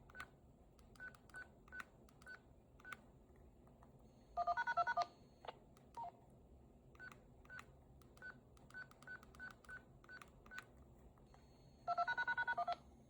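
Single key beeps as digits are punched into a DTMF keypad, with two fast strings of DTMF dual tones, one about four seconds in and one near the end. The strings carry extra digits ahead of the arm code, and the siren controller does not respond to them.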